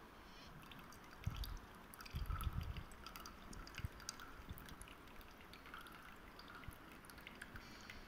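Faint pouring and trickling as a slurry of acetanilide crystals in water is tipped from a glass flask into a paper filter in a funnel, dripping through into a glass beaker, with many small ticks. Dull low bumps come about a second in and again around two to three seconds in.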